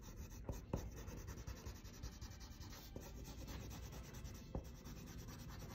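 Coloured pencil scratching and rubbing on drawing paper in short hair-like strokes, with a few faint clicks.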